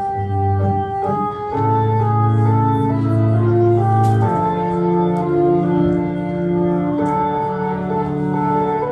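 Organ music, in the style of a Hammond organ: held chords that change every second or two under a melody line.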